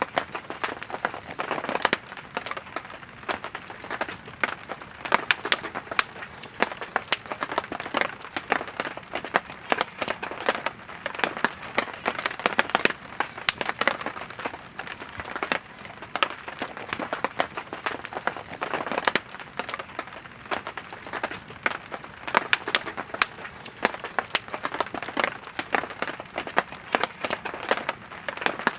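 Campfire of burning firewood crackling, with many sharp irregular pops and snaps over a steady hiss of flame.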